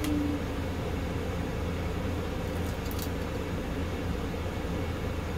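Steady low mechanical hum of room machinery, with a couple of faint clicks near the start and about three seconds in.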